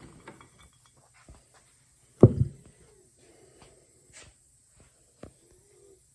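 Small clicks and handling noises from hand tools and parts being worked on a blower housing, with one sharp thump about two seconds in.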